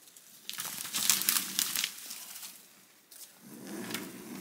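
Dry fallen branches and twigs cracking and crunching underfoot as someone walks through deadwood slash, with a dense run of snaps about a second in and a few more near the end. A low, wavering pitched call begins near the end.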